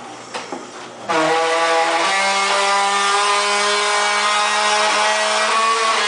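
Craftsman belt-drive garage door opener running with the door moving. About a second in it starts a loud, steady whine made of several tones, which steps slightly up in pitch near the end. This is an excessive noise that the owner takes for a serious problem.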